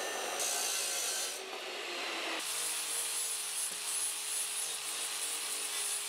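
Abrasive cut-off saw grinding through a steel pipe, then, after a change about two and a half seconds in, an angle grinder working on the cut pipe end with a steady high whine.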